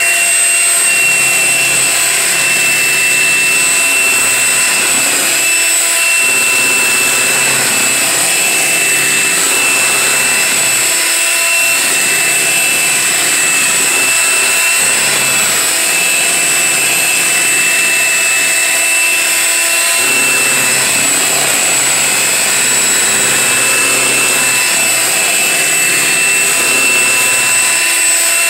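Electric hand mixer switched on and running at a steady speed, its twin beaters whisking vanilla instant pudding mix into milk in a large bowl, with a steady high motor whine.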